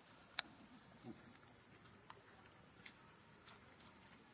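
Steady high-pitched chorus of insects, with one sharp click about half a second in and a few faint ticks after it.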